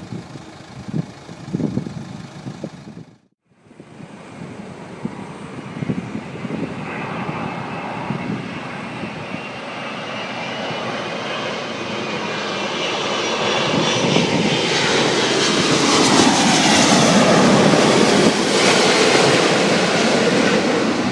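Airbus A380 jet engines growing steadily louder as the airliner approaches and passes, a rumble with a high whine over it. About three seconds in, the sound drops out briefly before the build begins.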